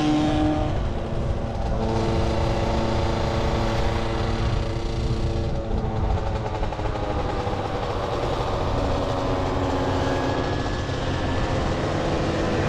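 Small 50cc moped engines running at speed: the engine under the camera carries a steady note that shifts in pitch and rises slightly near the end, with other mopeds' engines around it. Wind rumbles on the microphone throughout.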